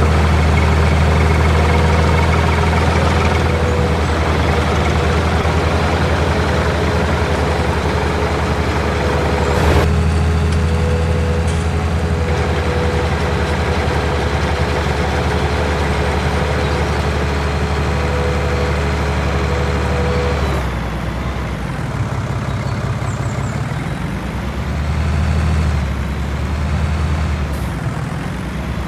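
Heavy diesel engine running steadily. About two-thirds of the way through it drops lower, and its pitch dips and rises as it is revved.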